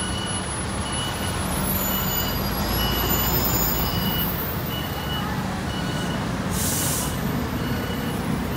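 Buses at a city bus stop: a steady low engine rumble, a high electronic beep repeating about twice a second through the first half, and a sharp air-brake hiss about six and a half seconds in.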